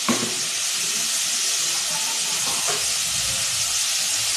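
Chopped onion frying in hot olive oil in a pan: a steady sizzle, with a single knock just after the start.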